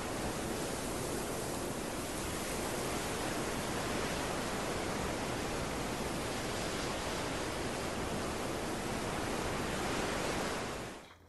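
Steady, even rushing hiss like static or running water, fading out near the end.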